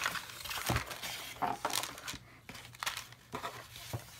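Paper rustling and crinkling as kraft paper bags and a sheet of patterned paper are handled and lifted out of a cardboard box, with several short, sharper crackles.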